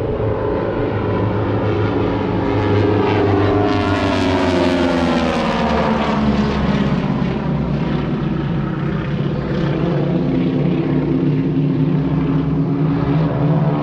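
A formation of North American T-6 Texan aerobatic planes with radial engines and propellers, droning loudly overhead. The engine and propeller pitch slides down as they pass about four to eight seconds in, then holds steady as they pull into a loop.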